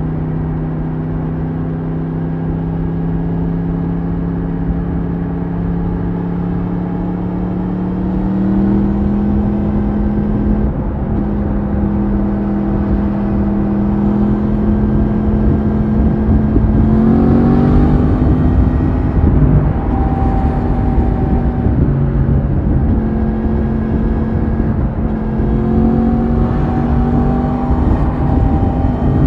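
Yamaha MT-10's crossplane inline-four on its stock exhaust, pulling at motorway speed: a steady engine note that rises in pitch and grows louder at about a third of the way in, again past the halfway point and once more near the end as the throttle opens, over a rush of wind and road noise.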